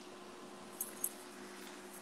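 Quiet room tone: a steady hiss with a faint low hum, broken by two faint high-pitched clicks about a quarter of a second apart near the middle.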